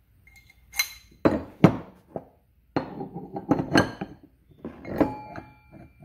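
Pieces of steel square bar and a bolt clinking and knocking together as they are handled and fitted, in irregular knocks; one knock about five seconds in leaves the steel ringing briefly.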